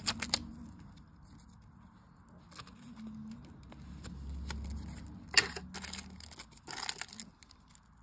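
Crinkling and rustling of clear plastic stamp sheets being handled, as a clear stamp is peeled off its plastic backing, with a sharp click a little past halfway.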